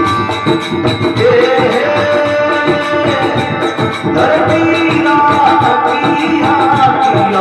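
Rajasthani folk bhajan music played live: a singing voice gliding over a sustained melodic accompaniment, with steady hand-drum percussion throughout.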